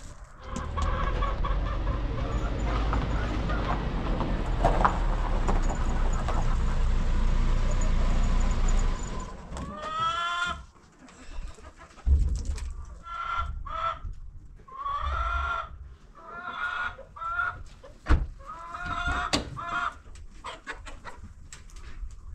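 A steady rushing noise with a deep rumble for about the first nine seconds, which then stops abruptly. Chickens follow, clucking in a string of short calls.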